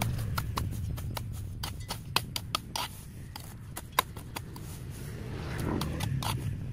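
Irregular sharp clicks, snips and scrapes of hand tools working through vegetation, with one louder click about four seconds in, over a low steady hum.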